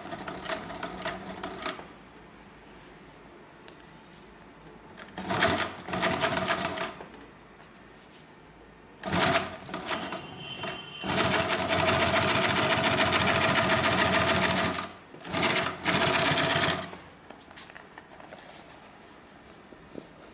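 Hightex 768-273 two-needle post-bed compound-feed industrial sewing machine stitching fabric in stop-start runs: several short runs of a second or two and one longer run of about three seconds past the middle, with quiet pauses between them.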